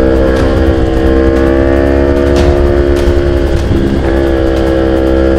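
Kawasaki Ninja 250 FI parallel-twin engine running under way, heard from the rider's seat, with heavy wind noise on the microphone. The engine note climbs slightly, drops out briefly about three and a half seconds in, then steadies again.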